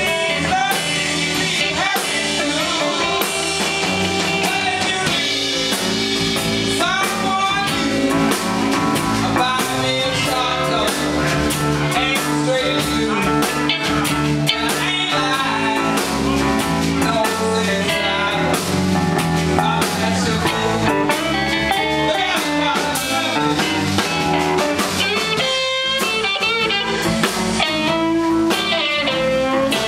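Live electric blues band playing: electric guitars, bass guitar and a drum kit.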